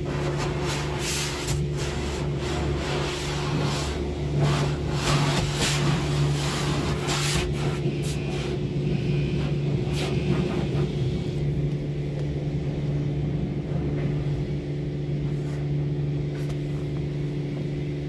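Automatic car wash heard from inside the car's cabin: a steady low mechanical hum under water spraying and splashing against the car's body and windshield. The spraying is heavy and uneven through the first ten seconds or so, then eases to a lighter wash over the hum.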